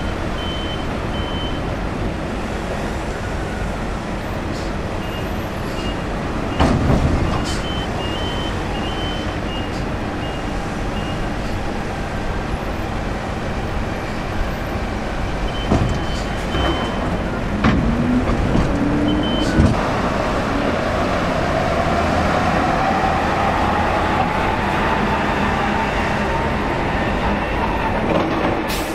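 Steady engine noise with a high beep repeating in short runs, and a few knocks and thumps about a quarter and half to two-thirds of the way in.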